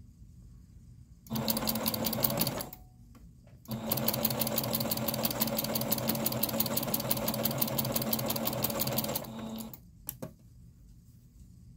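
Electric sewing machine stitching through thick layers of terry cloth: a short run of about a second and a half, a brief pause, then a steady run of about five and a half seconds, its needle strokes repeating fast and even. A couple of small clicks follow near the end.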